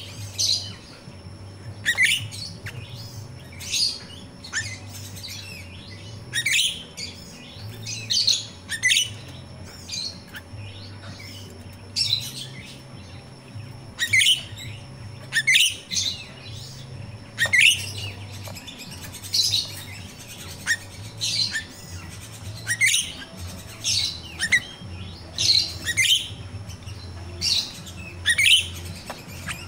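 A finch-billed myna (jalak rio-rio) calling over and over: short, sharp, high chirps that drop slightly in pitch, coming singly or in quick pairs every second or two.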